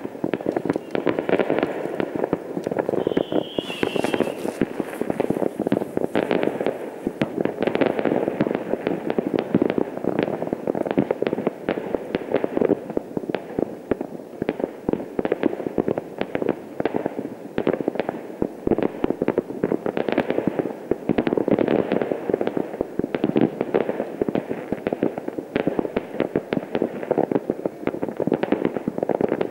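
Many fireworks going off across a town at once: a continuous dense crackle of overlapping bangs and pops with no pause. A brief wavering whistle rises over it about three seconds in.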